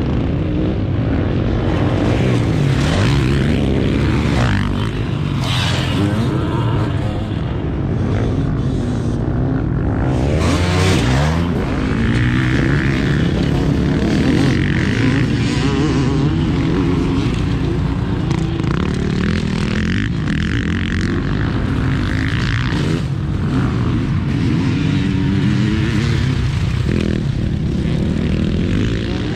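Motocross bike engines revving on a dirt track, the pitch repeatedly rising and falling with throttle and gear changes.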